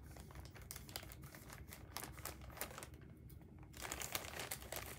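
Scissors snipping through a plastic poly mailer, a run of short crisp cuts with the plastic crinkling. After a brief pause about three seconds in, the plastic crinkles more densely and louder as the bag is opened and handled.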